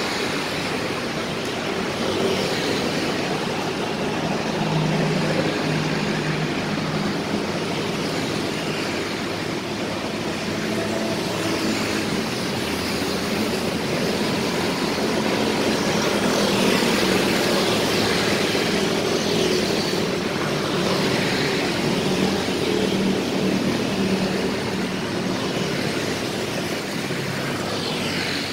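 Busy road traffic: motorbikes and cars passing continuously, their engines and tyres swelling and fading as each one goes by.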